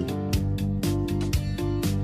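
Background music: an instrumental track with guitar-like plucked notes over a steady beat.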